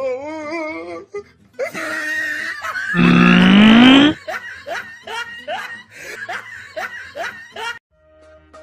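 Human laughter in repeated short bursts, about two a second. A loud, rising pitched sound lasting about a second comes before it, about three seconds in. The laughter cuts off abruptly near the end.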